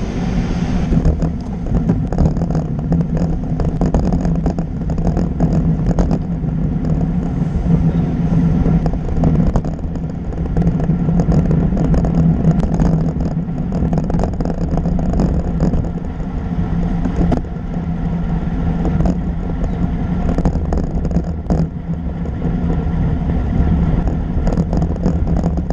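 Riding noise picked up by a camera mounted on a road bicycle: a steady low rumble and hum of tyres on tarmac and air on the microphone, with frequent small clicks and rattles.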